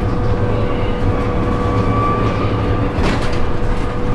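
Cab interior of an Irisbus Civis electric trolleybus under way: the drive gives a steady whine over low road rumble. There is a brief rattle about three seconds in.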